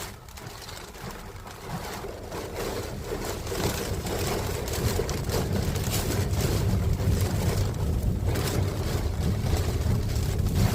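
Heavy rain with gusty wind rumbling on the microphone, growing steadily louder.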